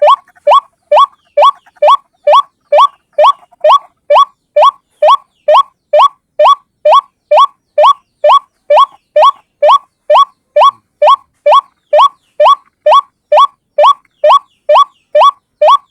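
White-breasted waterhen (ruak-ruak) call: one short, upward-sliding note repeated evenly about twice a second without a break, played as a looped lure call for trapping.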